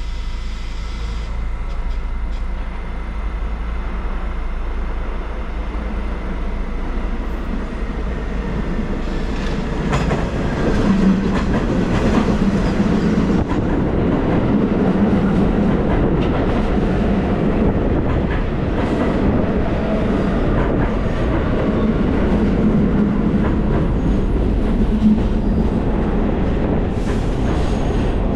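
A train running past on the rails, louder from about ten seconds in, with a steady rumble.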